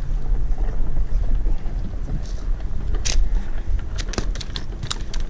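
Wind rumbling on the microphone, then a sharp thump about three seconds in and, from about four seconds in, a quick irregular run of slaps: a small fish landed and flopping on the wooden pier planks.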